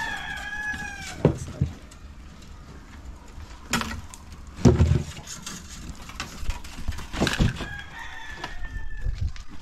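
A rooster crowing twice: one crow trails off about a second in, and another comes near the end. Between the crows there are several sharp knocks and thumps, the loudest about five seconds in.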